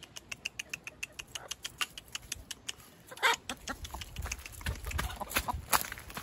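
Rapid, even clicking, about seven a second, for roughly the first three seconds. Then a hen gives a short squawk and footsteps scuff and thud through dry leaves and dirt as she is chased.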